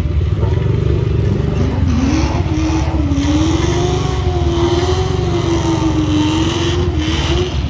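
Junior dragster's single-cylinder engine running at a low, choppy idle, its pitch wandering up and down through the middle of the stretch.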